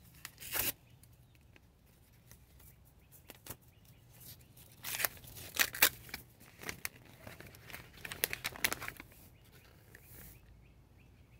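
Paper seed packet being handled and opened, rustling and crinkling in several short bursts of small crackles.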